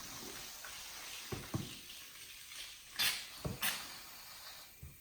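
Aerosol shaving cream cans spraying in two short hisses about three seconds in, with a few soft knocks of handling around them.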